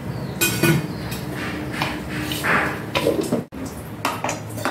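Stainless-steel mixer-grinder jar being handled: metal clinks and knocks, a few sharp ones about half a second in and more around two and a half to three seconds in.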